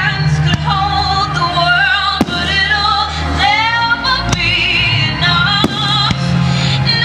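Music with a singing voice, held notes with vibrato over steady bass, and several sharp bangs of fireworks bursting at uneven intervals.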